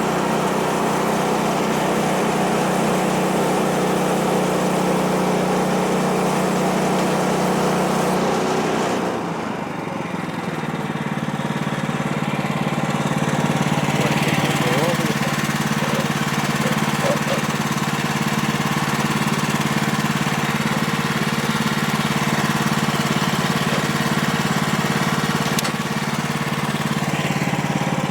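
Gasoline engine of a portable bandsaw sawmill running steadily. About nine seconds in, its note shifts with a brief dip in level, then it settles and runs steadily again.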